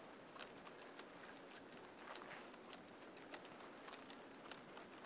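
Faint footsteps on a snow-covered path, a short crunching step about every half second.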